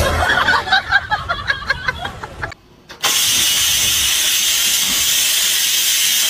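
Electric pressure rice cooker releasing steam in a loud, steady hiss that starts about halfway in and runs on. Before it, a jumble of short clicks and other shifting sounds, then a brief drop.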